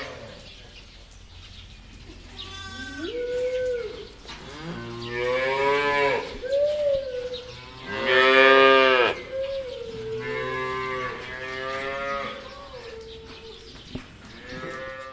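A cow mooing repeatedly: about six drawn-out calls, the loudest about halfway through.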